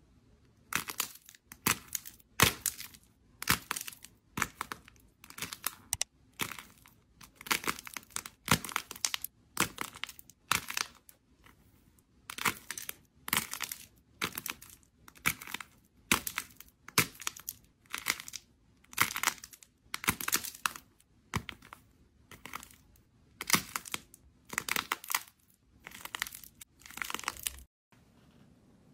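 Crisp crackling and crinkling in short bursts, about one a second, as fingers crush and peel the dry outer crust off purple slime balls. It cuts off suddenly just before the end.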